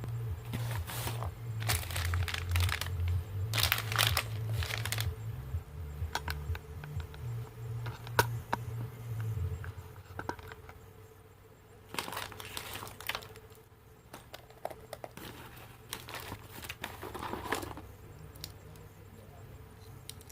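Packaging being handled and opened: irregular crinkling and rustling, with tearing sounds. A bass-heavy music track plays under it for the first half, then stops.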